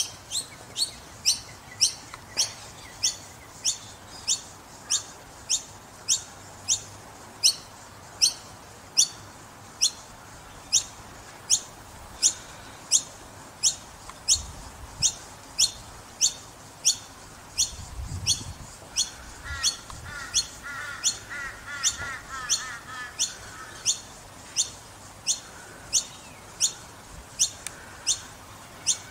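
Noisy miner fledgling calling over and over, a short high-pitched note repeated very regularly about twice a second, typical of a chick begging for food. For a few seconds past the middle a lower, rapid chattering from another bird joins in.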